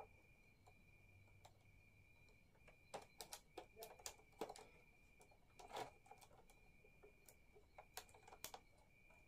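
Faint, irregular clicks of a plastic punch card being fitted and pinned into a domestic knitting machine's card reader, coming mostly in the second half, over a faint steady high whine.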